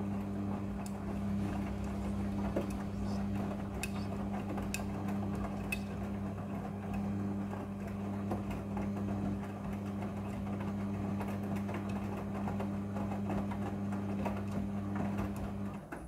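Midea front-loading washing machine turning its drum of wet clothes during the wash, the motor giving a steady hum with a few light clicks. Near the end the drum stops and the sound cuts off.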